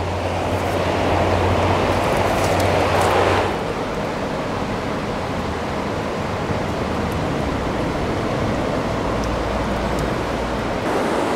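Steady rushing outdoor noise, a little louder for the first three and a half seconds and then settling slightly lower.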